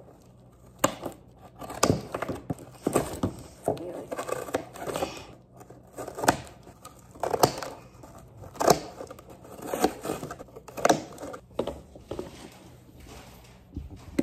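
Scissors cutting through a cardboard box: sharp snips about once a second, with the crinkle and rustle of the cardboard being handled between them.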